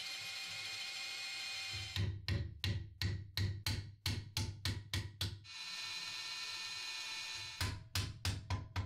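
Electric drill running steadily, then a run of sharp tapping knocks, about three a second, as the wooden knife handle is knocked into line on a bolt through the blade's pin hole. The motor hum comes back in a pause, and a few more knocks follow near the end.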